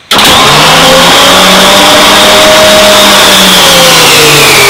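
B-29 landing gear retracting under power: the gear-retraction motor runs with a steady whine that rises and then sags slowly in pitch as the gear swings up into the wheel well. It starts suddenly and is loud.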